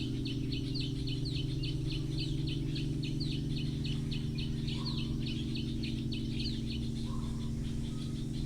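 Crystal singing bowls sustaining several steady low tones together, over a nature recording with a fast train of short high chirps, several a second.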